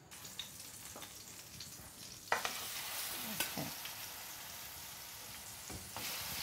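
Raw lamb pieces laid into hot oil in a frying pan, sizzling. A few light knocks come first; about two seconds in a sharp hiss starts and settles into steady frying, which swells again near the end.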